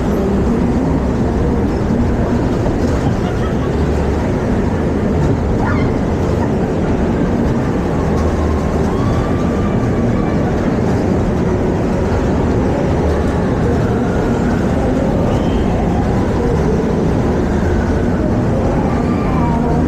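Steady, loud rumble of a fairground dodgem car running, heard from on board, with a few faint voices in the background.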